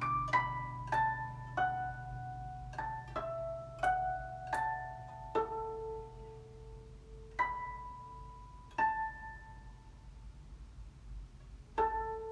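Guzheng playing the closing phrase in harmonics: single plucked notes with clean ringing tones, coming quickly at first, then thinning out to a few well-spaced notes, with a last note near the end left to ring.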